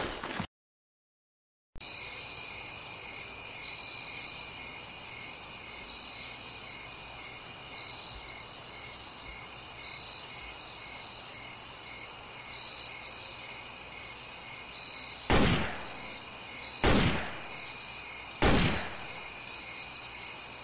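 Steady night chorus of crickets, a continuous high trill with a faint regular pulse. Near the end, three sharp loud bangs about a second and a half apart cut through it.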